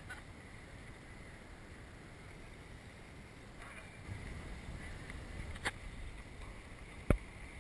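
Wind rumbling on the camera microphone, stronger for a couple of seconds in the middle, with a faint click and then one loud sharp click near the end.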